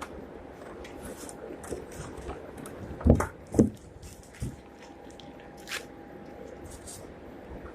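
Soundbar packaging being opened and handled, with small rustles and clicks throughout and two louder thumps about three seconds in.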